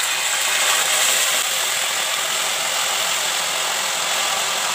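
Water poured into hot ghee in an uruli, sizzling and spattering steadily as it boils up in the fat.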